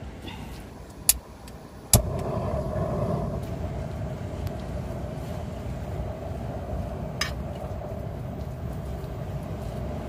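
Two sharp knocks of a spatula against a griddle pan, about one and two seconds in, then a steady low rumble with a hum that starts at the second knock and runs on, with one more light knock near the seven-second mark.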